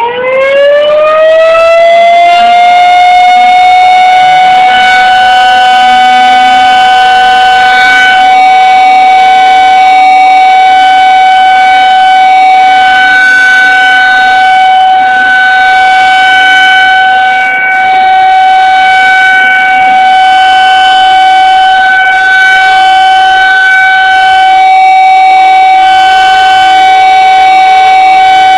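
Rotating outdoor warning siren sounding for a test: it winds up from a low pitch to a high wail over the first two seconds or so, then holds one steady, loud tone.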